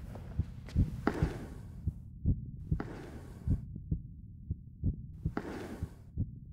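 Soft low thuds in an uneven rhythm, a few to a second, with a short hissing rush about every two and a half seconds.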